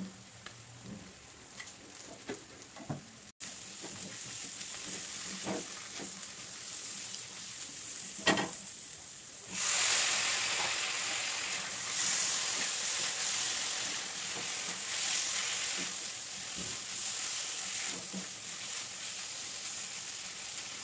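Vegetables frying in oil in an aluminium kadai. A few light spoon taps come first, then a knock about eight seconds in. After that a loud, steady sizzle sets in as chopped tomato fries, stirred with a spatula.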